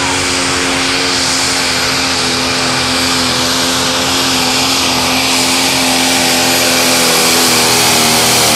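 John Deere pulling tractor's diesel engine running flat out under heavy load as it drags the weight sled: a loud, steady drone that holds its pitch, wavering a little near the end.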